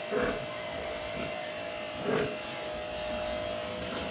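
Pigs grunting, two short grunts about two seconds apart, over a steady electric hum.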